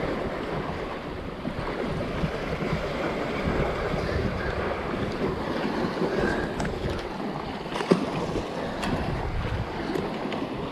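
Wind buffeting the microphone over the wash of sea waves on rocks, with one sharp click about eight seconds in.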